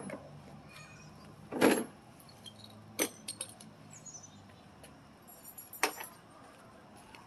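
A few scattered light clicks and rattles over a faint steady hum, the loudest a short knock about one and a half seconds in.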